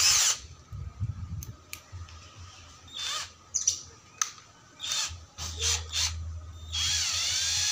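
Clicks and rattles of a Benz Werkz BZ-8004 cordless drill's keyless chuck being worked by hand to reseat a drill bit that was not sitting true. Near the end the drill motor runs briefly with a whine while the chuck is gripped to tighten it.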